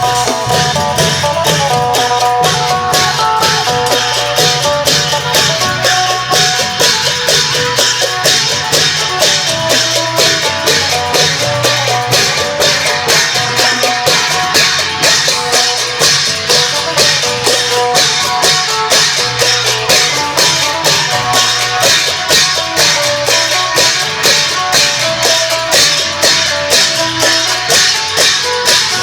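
Isan folk music from a klong yao long-drum band: a phin (plucked lute) plays a repeating melody over a steady, even percussion beat.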